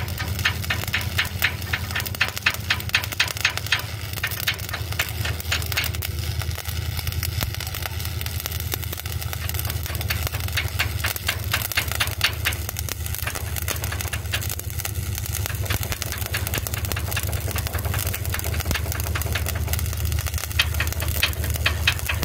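Stick (shielded metal arc) welding arc crackling steadily during an overhead 4G weld, over a steady low hum.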